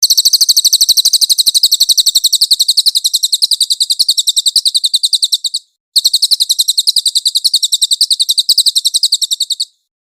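Cililin songbird singing a clear, high, very fast trill of repeated notes. It sings in two long bouts, with a short break just past the middle.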